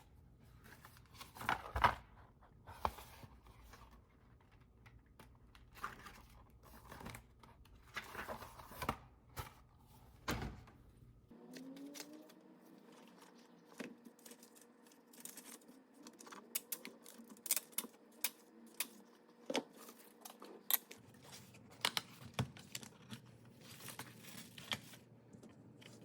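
Small handling sounds in a quiet room: scattered rustling, taps and clicks of objects being picked up and set down, in several short edited shots.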